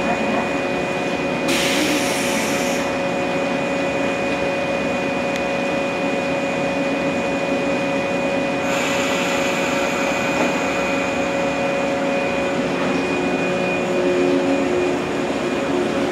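Stationary yellow JR West electric train humming steadily at the platform, with two bursts of compressed-air hiss about 1.5 s and 9 s in; its doors close in this span. Near the end the traction motors come in and the train starts to pull away.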